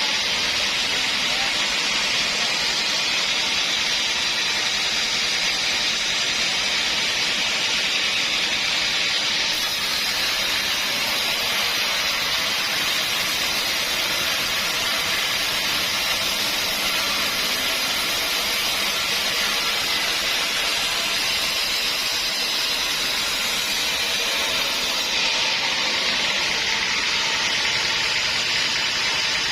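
Sawmill saw running through dense hardwood, a steady, even hiss of cutting that turns brighter from about ten seconds in until about twenty-five seconds.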